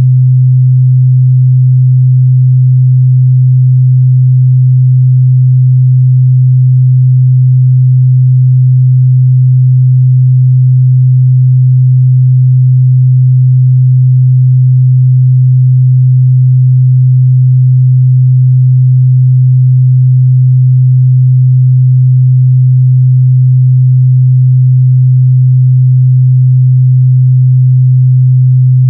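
A steady, loud 128 Hz pure sine test tone, held unchanged at one pitch, for checking a speaker's or headphone's mid-bass response.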